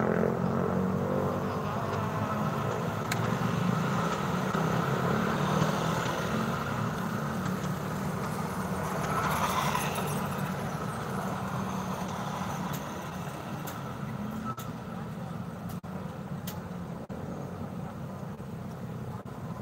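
Roadside traffic: vehicle engines running steadily, with one vehicle passing close about halfway through, after which the traffic sound eases.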